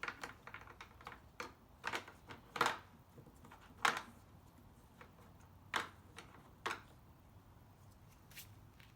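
Irregular clicks and light knocks of small plastic and metal parts being handled during fuel-filter work on a leaf blower, the loudest two falling near the middle.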